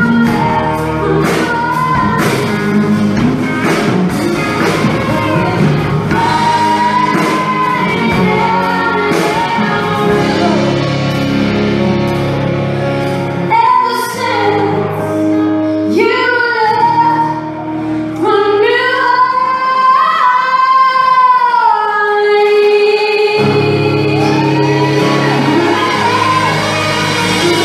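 A woman singing live with a band that includes electric guitar. Past the middle the band's low end drops away and she holds several long notes nearly alone, before the band comes back in near the end.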